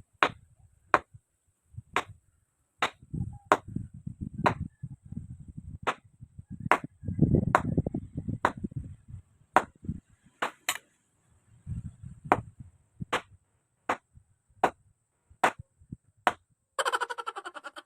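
Repeated sharp strikes of a hand tool, about one every two-thirds of a second, with low knocking and rumbling between blows, then a short rasping buzz near the end.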